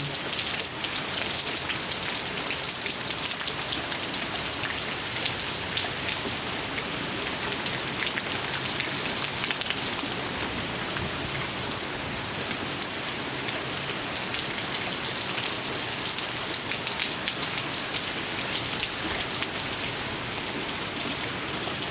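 Heavy, steady rain pouring down and pattering on surfaces, with a dense, continuous hiss of many individual drop hits.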